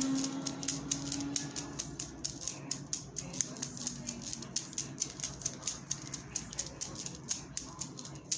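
A clock ticking in quick, even ticks, several a second. A steady tone fades out in the first second or so.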